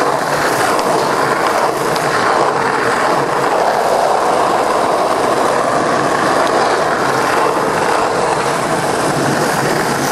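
Skateboard wheels rolling on asphalt, a steady rolling noise heard close to the road surface, with a few faint clicks.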